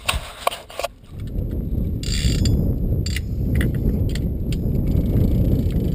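Fishing reel being cranked while a hooked fish is fought, with irregular mechanical clicks from its gears and ratchet. Underneath is a steady low rumble of wind on the microphone.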